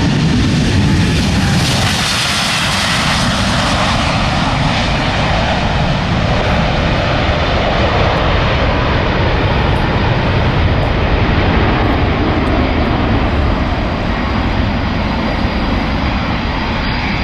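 Boeing 787 Dreamliner's twin turbofan engines at takeoff thrust through the takeoff and steep climb-out: a loud, steady jet noise, brightest and hissiest in the first few seconds as the airliner goes past.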